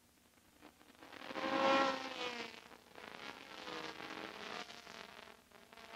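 Formula Atlantic race cars' high-revving four-cylinder engines passing by. One car swells to a loud peak just under two seconds in and drops in pitch as it goes by, then another passes more quietly.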